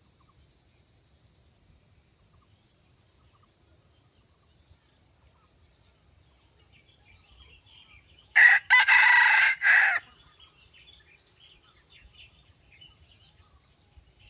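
Red junglefowl rooster crowing once, about eight seconds in: a short, loud crow of about a second and a half in three parts, the middle part the longest.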